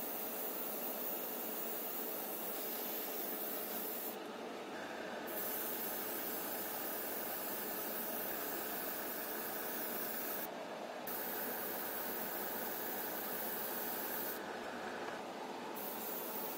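Small gravity-feed spray gun hissing steadily as it sprays paint, its hiss going duller for a moment three times.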